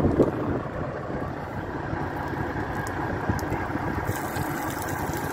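Diesel engine of a Volvo truck idling steadily, with wind buffeting the microphone at the start. About four seconds in, a hiss joins as water from the truck's water tank runs out of a drain pipe and splashes onto the asphalt.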